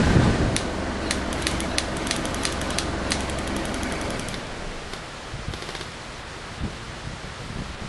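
Airsoft rifles firing a quick string of sharp, clicking shots, several a second for about two and a half seconds, then a couple of single shots. Wind rumbles on the microphone at first.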